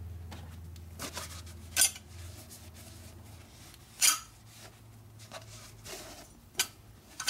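Rag wiping and scrubbing the deck of a cast-iron Ford four-cylinder flathead engine block: several short, sharp scrubbing strokes with light metallic clinks, over a low steady hum that fades out about halfway through.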